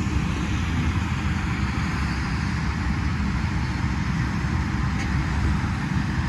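Steady running noise of tractors pulling hay balers across a field, an even rumble with no distinct strokes or changes.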